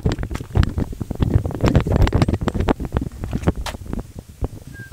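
Wind buffeting the microphone, heard as uneven rumbling gusts and knocks.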